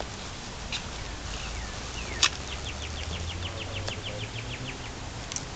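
A songbird sings a quick trill of about a dozen notes, at about six a second, with a few single chirps and a sharp click just before it. A low rumble swells under the trill and fades as it ends.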